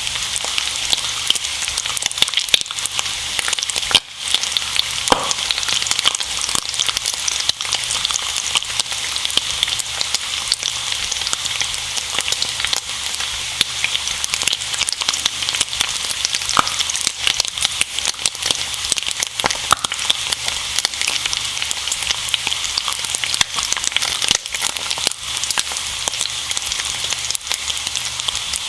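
Bacon and eggs frying in a pan: a steady sizzle thick with small crackling pops, with a few brief high squeals from the fat now and then.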